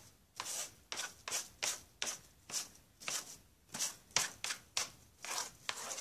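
A plastic card scraped in short, quick strokes over paint-covered plastic wrap, about two swipes a second, the wrap crinkling under it.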